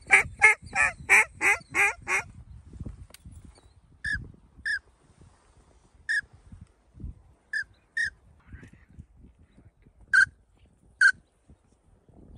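Duck calls blown in the blind: a fast run of about seven loud quacks, then short, sharp whistle notes about once a second.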